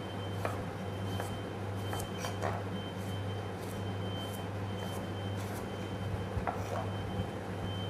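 Chef's knife cutting carrots into julienne strips on a plastic cutting board: a few scattered knocks of the blade against the board, over a steady low hum.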